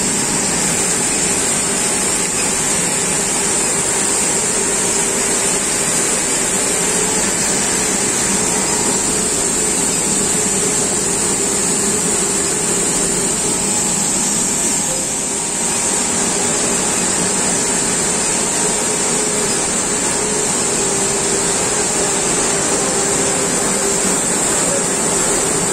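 Continuous induction bright-annealing machine for stainless-steel hose running: a steady machine hum with a constant high-pitched hiss over it.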